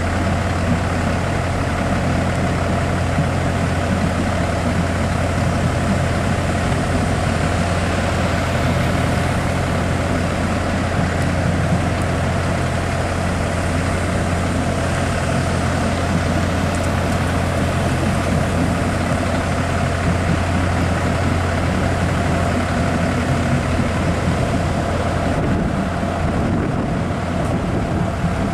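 Heavy truck engine idling steadily close by, a constant low drone, while cars roll slowly past.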